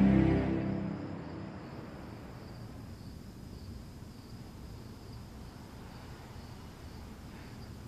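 Faint night ambience of crickets chirping: a thin, steady high trill over a low hiss, heard after a music cue fades out in the first second.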